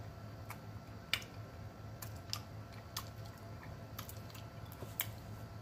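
A person chewing rotisserie chicken close to the microphone, with scattered sharp mouth clicks and smacks at irregular intervals over a steady low hum.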